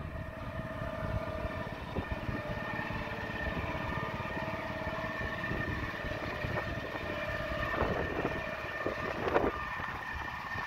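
Engine running steadily with a whine over it, and a few knocks and clatters about eight to nine seconds in.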